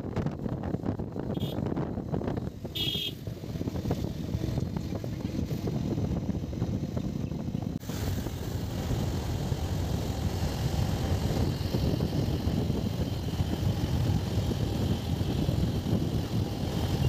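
Wind rushing over the microphone and the low rumble of a moving vehicle on the road, with a short high beep about three seconds in. The noise changes abruptly about eight seconds in.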